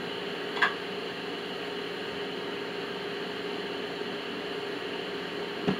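Steady hum and hiss of room noise from a running appliance, with a short click about half a second in and a soft thump near the end.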